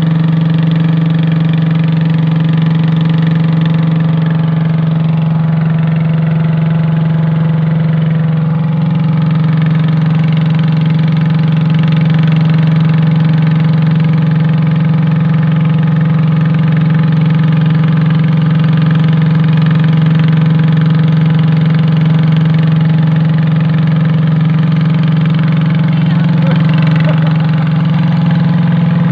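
Engine of a small motorized passenger boat running steadily under way, its note rising slightly about eight seconds in.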